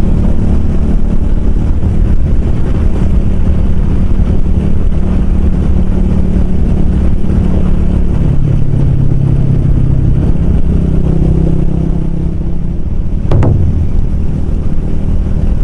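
Small single-cylinder motorcycle engine running on the road, with wind noise. The engine note drops about halfway through and rises again a few seconds later. There is one short sharp click near the end.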